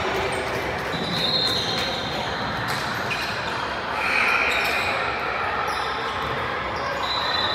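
Sounds of a basketball game in a gym: a basketball bouncing on the hardwood, spectators talking, and a few short high squeaks of sneakers on the floor.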